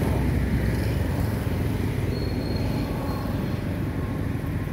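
Steady low rumbling noise, with a faint thin high tone for about a second near the middle.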